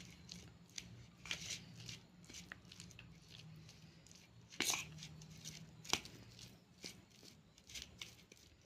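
Spoon scraping and stirring fried grated coconut into melted jaggery in a kadai: faint, irregular scrapes and taps, with a couple of sharper knocks about halfway through.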